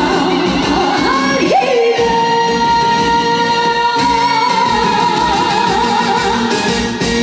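Live band music with a woman singing: she slides up into one long held note about one and a half seconds in, and the note wavers in a vibrato before it ends near the end.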